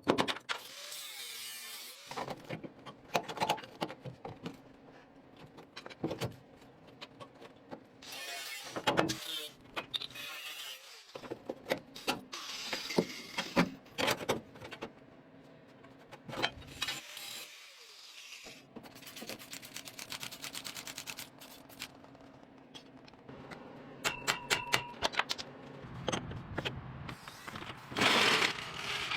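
Intermittent clicks, knocks and scraping from hand work, with a short burst of rapid clicking near the end.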